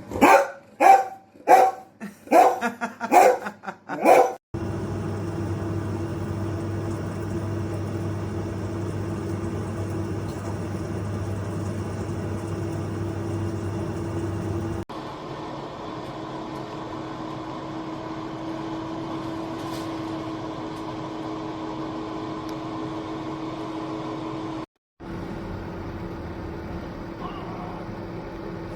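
A dog barks about six times in the first few seconds. After that, the air fryer oven runs with a steady fan hum and a constant tone, with a sudden change in level about halfway through.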